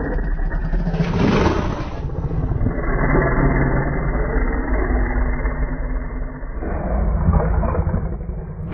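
Low, rough, rumbling monster growl sound effect for the Gryphon kaiju, with a harsher swell about a second in.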